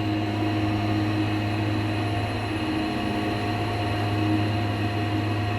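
Steady hum inside a moving KONE Ecodisc scenic elevator car as it travels down, with a few constant tones over an even drone and no chime or clicks.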